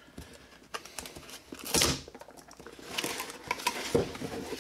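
A cardboard box being handled and opened: scattered taps and clicks as the box is set down and moved, with a brief scraping rustle of cardboard about two seconds in and more rustling near the end.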